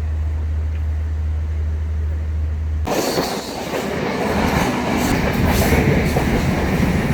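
A moving train: a steady deep rumble for about three seconds, then a sudden change to a loud rushing, rattling rail noise.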